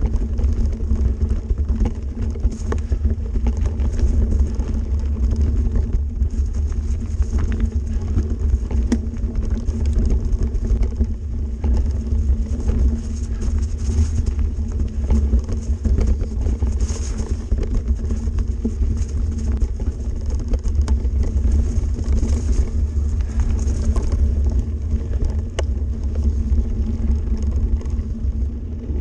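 Mountain bike rolling over a bumpy, leaf-covered dirt trail, heard through a handlebar-mounted camera: a steady low rumble of wind and vibration with frequent small knocks and rattles from the bumps.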